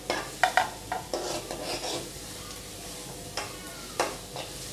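Metal spoon scraping and clinking against a steel kadhai as chopped onion, garlic and green chillies are stirred while frying in oil on high flame, over a steady sizzle. A quick run of clinks comes at the start, then scraping, then two single clinks near the end.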